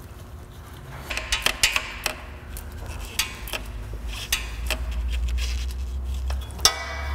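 Irregular metallic clinks and clicks of a wrench knocking against engine parts as a bolt is worked by hand, over a low rumble that grows louder in the second half.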